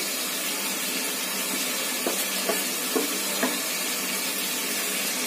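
A steel spoon scraping and tapping lightly on a steel plate a few times as coconut powder is pushed off it into a bowl of yogurt, over a steady background hiss.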